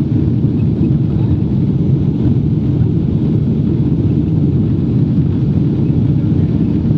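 Steady low rumble inside a jet airliner's cabin as it rolls along the taxiway: engine and rolling noise heard through the fuselage, even in level throughout.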